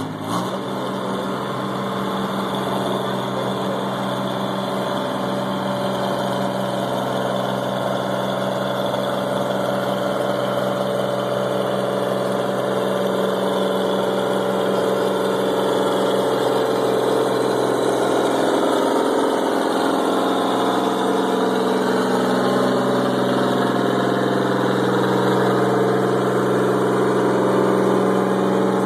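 Modified Oliver 880 diesel tractor engine running steadily under load during a pull, slowly growing louder.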